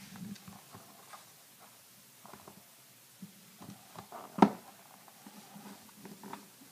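A stack of trading cards being handled, with small scattered scrapes and taps of card edges. About four and a half seconds in there is one sharp knock as a cardboard card box is set down on the wooden table.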